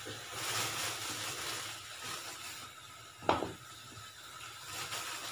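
Water hissing in a hot kadhai, with a single sharp knock a little past three seconds in as another lump of jaggery drops into the pan.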